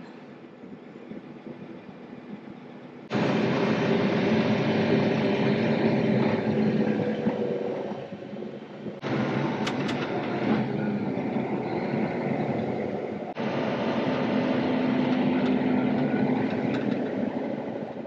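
Tractor engine and machinery running, heard from inside the cab, a steady noise with a low engine hum. About three seconds in it jumps suddenly much louder, and it changes abruptly again twice later on.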